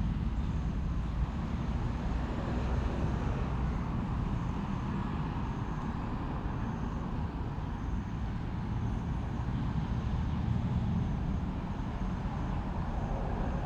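Steady low rumble of a CSR diesel locomotive idling at the head of a stationary container freight train.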